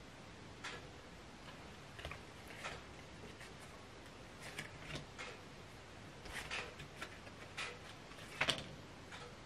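Light, irregular clicks and ticks from hands handling fly-tying materials and tools, with a louder double click near the end.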